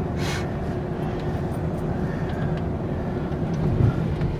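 Road and engine noise heard from inside a vehicle: a steady low rumble with a faint constant hum, a short hiss just after the start and a low thump near the end.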